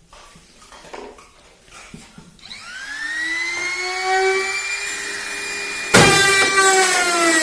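Faint taps, then an electric power tool's motor spinning up with a rising whine about two and a half seconds in and running steady. Near six seconds it turns suddenly louder and rougher as the tool bites into the wood.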